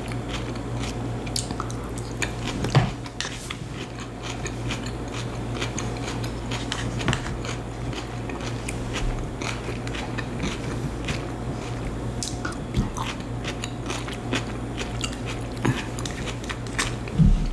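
A person chewing and biting food close to the microphone, with many small crunches and mouth clicks, over a steady low hum.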